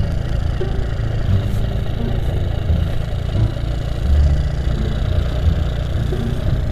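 Honda C70's small single-cylinder four-stroke engine running steadily while the motorcycle is ridden along, under a low, uneven rumble.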